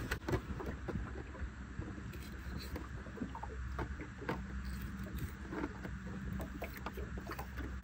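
Small clicks, taps and scrapes of a kitchen knife being set down and cutting into a mackerel on a plastic cutting board, over a steady low rumble.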